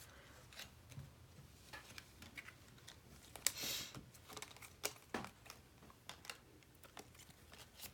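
Baseball cards being handled and gathered up by hand: faint, scattered light clicks and taps, with a brief rustle about three and a half seconds in.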